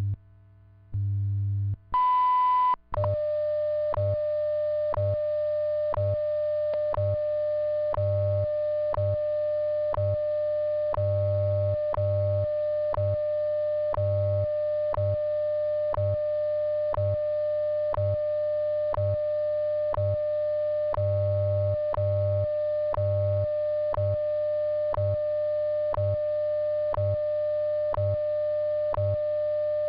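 WWV shortwave time signal. About two seconds in, the long high beep marks the top of the minute. It is followed by a steady lower audio tone with a short tick every second and a low time-code buzz pulsing underneath in long and short pulses.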